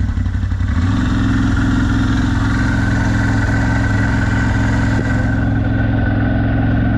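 CF Moto 1000 engine running steadily while the vehicle is driven, picking up slightly about a second in, with a faint high whine over the engine note.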